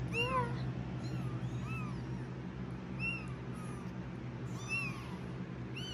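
Three-week-old kittens mewing: a scatter of short, high, arching mews, about eight, some from different kittens at different pitches. A fan hums steadily underneath.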